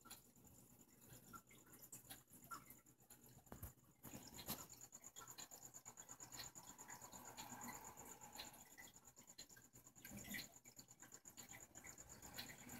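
Near silence: faint scratchy handling noise with scattered small clicks, over a faint steady high-pitched whine.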